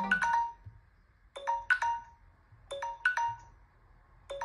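Samsung Galaxy S7 timer alert sounding: a short phrase of a few quick, bright ringing notes, repeated three times about every 1.3 s, with quiet gaps between. Right at the end, a louder, fuller ringtone cuts in.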